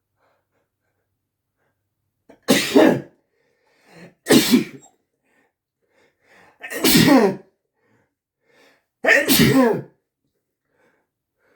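A man sneezing wetly four times, about two seconds apart, each sneeze loud and under a second long. Each sneeze comes after a short catching breath.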